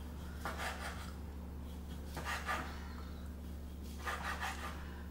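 Knife slicing through Korean blood sausage (sundae) onto a wooden cutting board: three slicing strokes about a second and a half apart, over a steady low hum.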